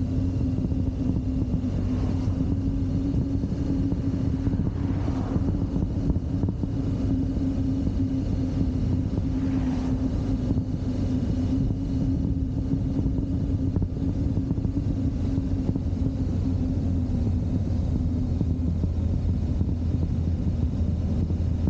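BMW R1200GS flat-twin engine running steadily at cruising speed, with road and wind noise over the bike-mounted microphone.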